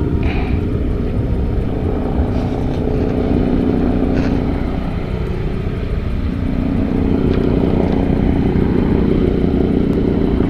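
An engine running steadily nearby. It eases off about five seconds in and comes back slightly louder a second later.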